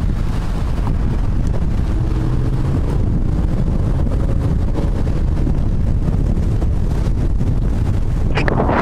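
Wind buffeting the microphone of a 360fly camera on a moving bicycle, a steady low rumble, with street traffic mixed in underneath. A few short, louder rushes come near the end.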